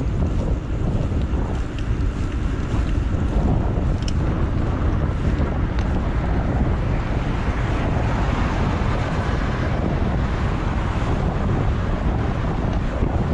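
Wind buffeting the microphone of a camera carried while riding along a street, a steady low rush with a couple of faint ticks.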